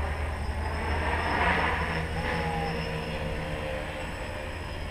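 Wind buffeting the microphone with a low rumble, under the hum of a small tricopter's electric motors flying some way off; the motor hum comes up about a second and a half in and fades again near the end.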